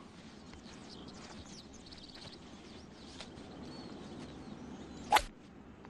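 Quiet golf-course ambience with faint bird chirps. About five seconds in comes a single sharp crack of a golf club striking the ball on a tee shot.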